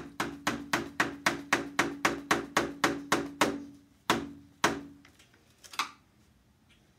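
Rubber mallet rapidly tapping the handle of a screwdriver, about four blows a second with a low ring under them, then two separate harder blows and one last light tap. The blows are knocking out a rusted-in window pivot bar and its screw.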